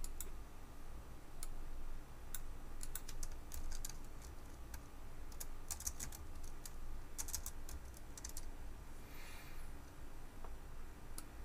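Computer keyboard keys clicking in short, irregular runs of typing.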